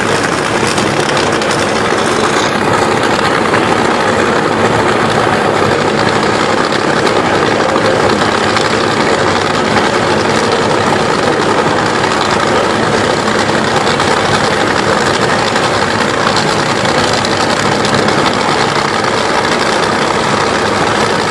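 Nitro-burning, supercharged drag-racing V8 engines idling on the starting line: a loud, steady rumble with no revs or launches.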